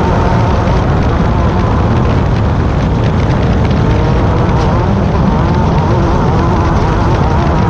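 Class 10 desert race buggy engine running hard, a loud steady rumble whose pitch wavers up and down slightly, with many small knocks and rattles over rough ground.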